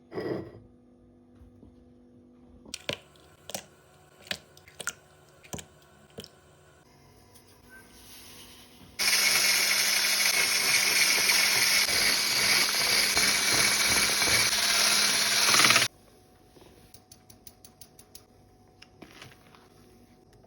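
A few sharp knocks and taps, then an electric kitchen appliance motor, blender-type, runs steadily and loudly for about seven seconds and cuts off suddenly. Faint light clicks follow.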